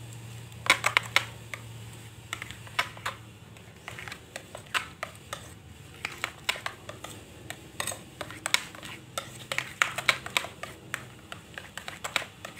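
A spoon stirring thick flour batter in a glass bowl, clicking and tapping against the bowl's sides in quick, irregular strokes.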